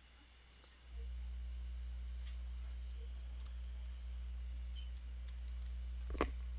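Scattered keystrokes on a computer keyboard as a short word is typed and corrected, with one louder key click about six seconds in, over a steady low electrical hum that comes in about a second in.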